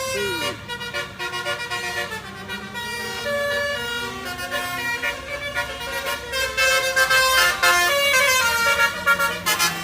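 Basuri musical air horns on two buses sounding against each other, playing overlapping tunes of held notes that step from pitch to pitch. They grow louder about two-thirds of the way through.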